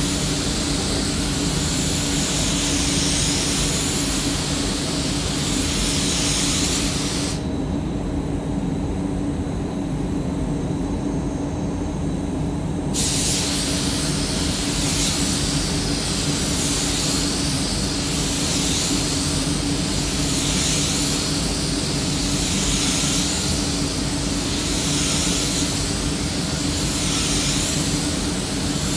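DeVilbiss DV1 spray gun hissing as compressed air atomises paint, over the steady hum of the spray booth's ventilation. The hiss stops about seven seconds in and resumes some five seconds later, while the booth hum carries on.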